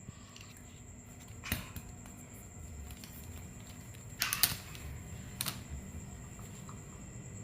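A few short clicks and rustles over a low steady hum; the loudest cluster comes about four seconds in, with single clicks near one and a half seconds and five and a half seconds.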